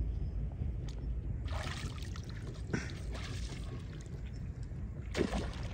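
Water splashing as a hooked fish thrashes at the surface close in, in three bursts: about a second and a half in, around three seconds, and again near the end.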